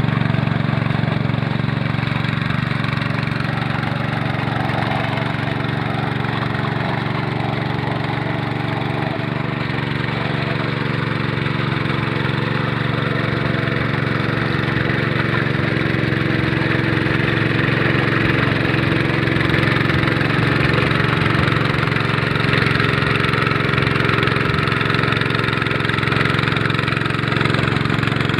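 Hand tractor with a rotavator attachment running steadily, its engine holding an even speed throughout.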